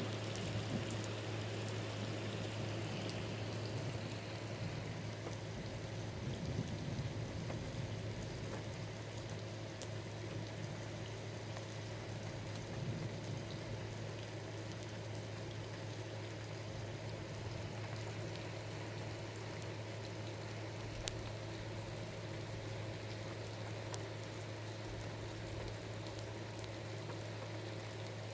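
Steady rain falling, an even hiss with a constant low hum underneath.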